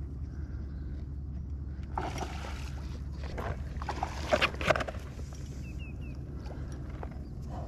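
Steady low wind rumble on the microphone, with bursts of rustling and a few sharp clicks between about two and five seconds in as fly line and tackle are handled. Two short high chirps follow about a second later.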